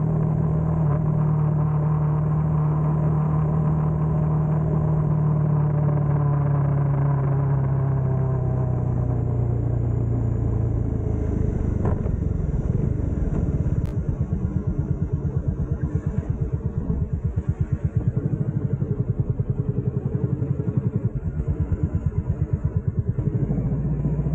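Bajaj Dominar 400's single-cylinder engine running under way, its revs easing steadily down over the first ten seconds, then running at low revs with an even, pulsing beat.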